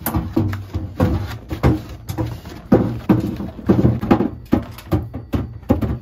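Apples being set one after another into a clear plastic refrigerator crisper drawer: an irregular run of thuds and knocks, a few a second.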